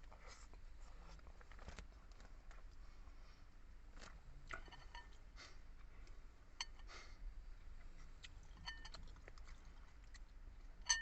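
Close-up mouth sounds of a person chewing and eating food, with soft clicks throughout. Short ringing clinks, like cutlery against a dish, come several times, the loudest right at the end.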